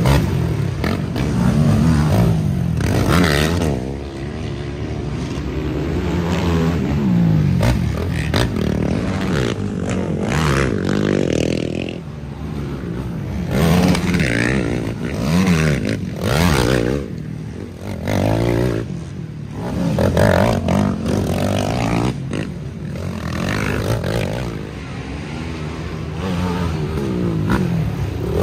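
Racing ATV engines revving hard one after another as quads climb a steep dirt hill, each swelling and fading as it passes, with the pitch rising and falling through the throttle changes.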